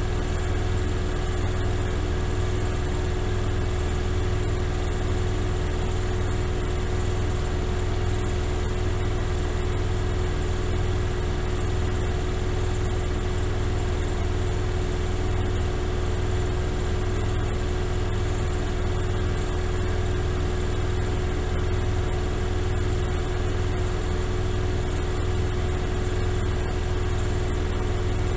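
Miele Softtronic W3923 front-loading washing machine spinning at a steady high speed: a constant low rumble under a steady motor hum, with no change in speed.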